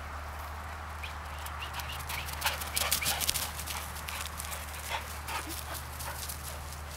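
A Vizsla's paws pounding on frosted grass as it gallops in: a quick, uneven run of footfalls, loudest about two and a half to three and a half seconds in, then thinning out, over a steady low hum.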